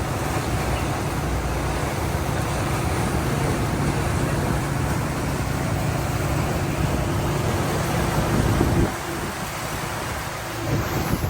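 Motor yacht underway: a steady engine drone under rushing wind and water noise. About nine seconds in the engine hum drops away, leaving gusty wind and water.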